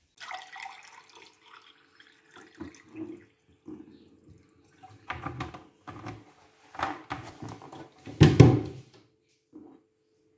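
Liquid poured from a bottle into a glass tumbler, coming in irregular glugs and splashes, loudest about eight seconds in.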